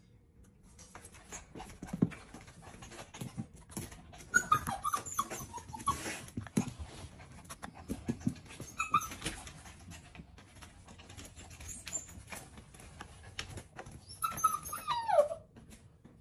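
Shih Tzu–poodle puppy whining to be given food: short high whines about four and nine seconds in, and a longer whine that falls in pitch near the end. Scattered knocks and thumps come in between.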